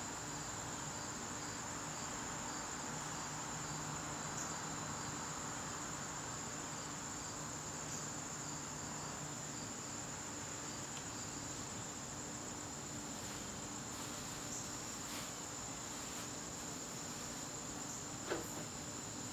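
Garden crickets singing: a continuous high trill, with fainter chirps repeating at an even pace, over a soft background hiss. A single brief sharp sound with a quickly falling pitch stands out near the end.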